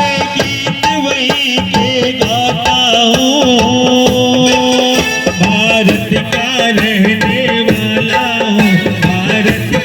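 Indian-style music: a melody that bends and wavers over a quick hand-drum beat, playing continuously.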